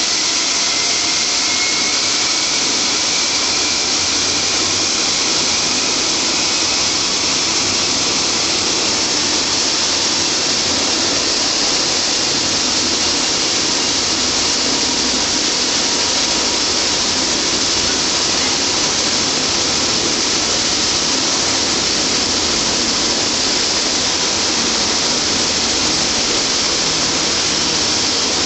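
Rescue helicopter running close by: a steady turbine and rotor-wash hiss, with a faint whine rising in pitch over the first few seconds.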